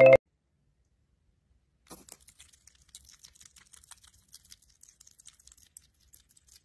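Faint, irregular soft clicking and crackling, starting about two seconds in, from a pet hedgehog lying on its back.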